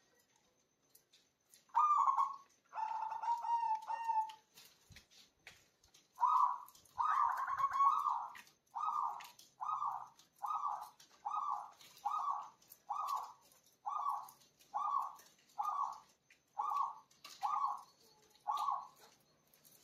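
Zebra dove (perkutut) singing: a short opening phrase of coos, then a long run of about fifteen evenly spaced cooing notes, a little under one a second.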